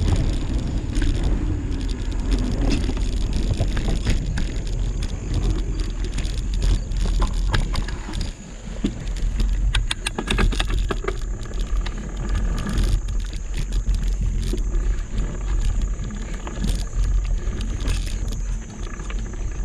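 Mountain bike rolling slowly along a dirt singletrack: tyres crunching on the trail and loose parts of the bike rattling and clicking over bumps, over a steady low rumble.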